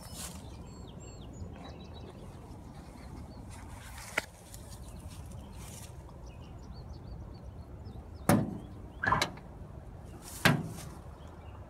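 Metal truck cab door being unlatched and pulled open by its chrome handle: a single sharp click about four seconds in, then three loud clunks of the latch and door over about two seconds near the end.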